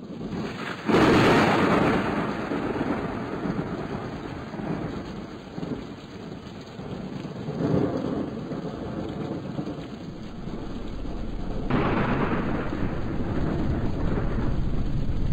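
Dense rumbling noise with a rain-like hiss. It jumps sharply louder about a second in, swells again about halfway, and surges once more about three-quarters of the way through.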